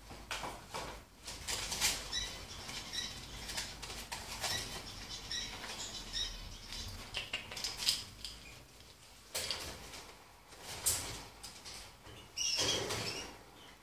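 Timneh grey parrot moving about, with rustling and scratching and a few soft high squeaks in the first half. Louder rustles come near the end.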